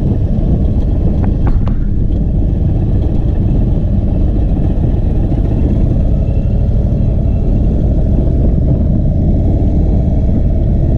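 Indian Chief Bobber's V-twin engine running as the motorcycle rolls at low speed, a steady low rumble, with a few faint clicks about a second and a half in.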